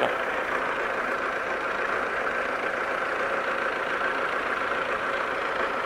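Self-propelled hay mower's engine idling steadily while the machine stands.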